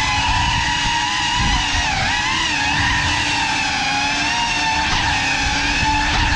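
Cinelog 35 cinewhoop's four ducted motors and propellers whining, several tones rising and falling together with the throttle.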